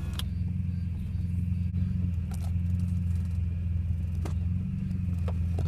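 A 1990 Mitsubishi Magna's engine running with a steady low hum as the car moves slowly, heard from inside the cabin, with a few sharp knocks and rattles from the body.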